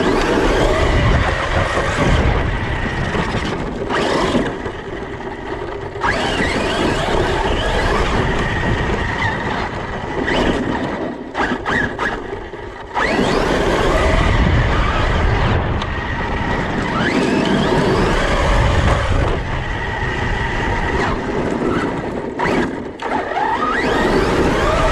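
Large-scale 6S brushless RC car being driven hard: the electric motor and drivetrain whine, with tyres churning over rough ground. The whine rises in pitch several times as the throttle is opened, and the sound drops away briefly a few times, most clearly near the middle and again near the end.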